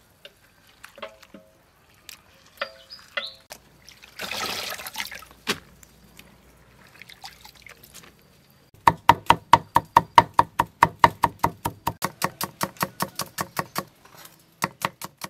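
Hands sloshing bean sprouts in a bowl of water, with a short splash about four seconds in. From about halfway, a large knife chops rapidly on a wooden cutting board, about six even strokes a second, mincing shallots and garlic.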